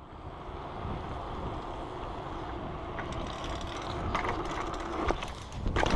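BMX bike rolling steadily over asphalt: a continuous tyre and riding rumble, with a few sharp clicks from the bike about three, four and five seconds in.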